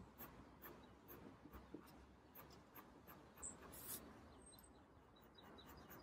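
Pencil lead scratching faintly on paper in short crosshatch strokes, about two a second.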